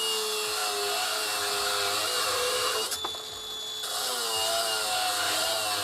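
Hilti AG-60 22-volt cordless angle grinder running unloaded with a steady motor whine. About three seconds in it cuts out with a click, which fits its motion-sensing shut-off and brake, and about a second later it spins back up.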